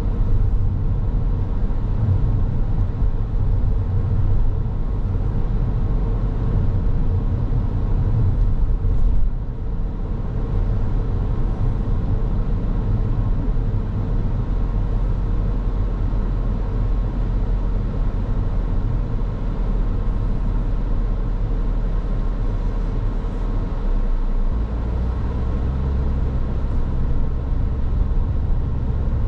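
A car driving, with a steady low rumble of engine and road noise. The level dips briefly about a third of the way through, and the low hum shifts pitch near the end.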